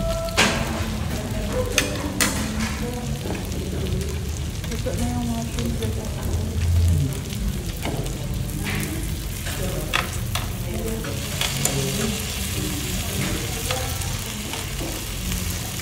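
Meat and shrimp sizzling steadily on a tabletop Korean barbecue grill plate, with a few sharp clicks and taps on top.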